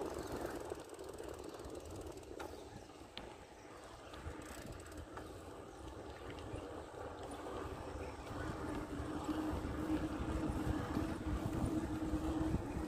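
Bicycle ride: road and wind rumble on the microphone, with a steady hum that grows louder over the second half.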